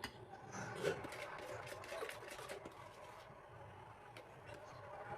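Faint kitchen handling noises: light clicks and knocks of utensils and small pans being moved, one a little louder about a second in.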